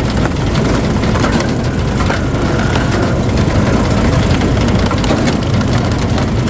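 Wood splitter's engine running steadily while the machine is worked, with faint knocks from the wood going through it.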